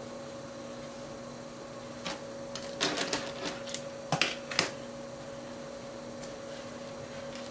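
Steady low hum with a cluster of sharp clicks and knocks from about two to five seconds in, objects being handled off-camera.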